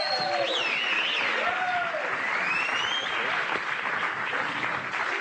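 Studio audience applauding steadily, with a few voices calling out in the first two seconds and a rising whistle around two to three seconds in.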